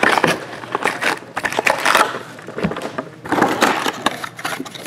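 Cardboard hobby box and foil-wrapped trading card packs being handled, with irregular rustling, crinkling and scraping in several bursts as the packs are pulled from the box and stacked.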